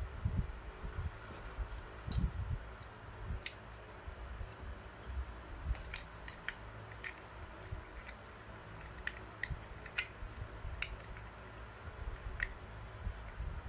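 Hobby nippers snipping plastic model-kit parts from their runners: a dozen or so sharp, separate clicks at irregular intervals, with soft thuds of the parts and tools being handled.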